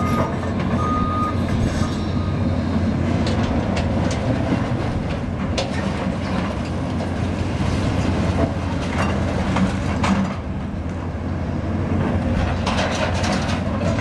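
Cat hydraulic excavator engine running steadily while demolition debris clatters and knocks as the machine works it, with repeated sharp impacts. A reversing alarm beeps twice in about the first second.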